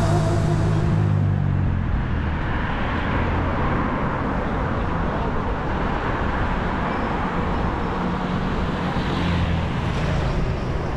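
Road traffic passing: vehicle engines humming low as cars go by, once at the start and again later, over a steady rushing road and wind noise.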